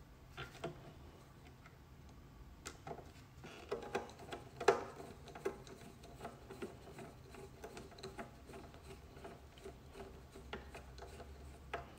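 Hand screwdriver turning small screws through rubber bumper feet into the metal base of a Shure wireless receiver: faint, irregular clicks and ticks, with a sharper click about five seconds in.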